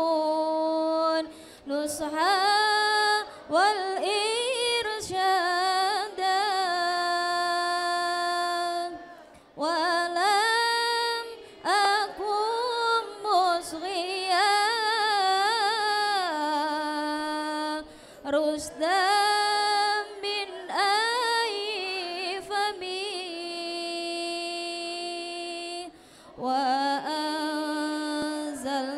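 Female student choir singing lalaran, Arabic verse chanted to a melody in unison, in sung phrases a few seconds long with short pauses between them.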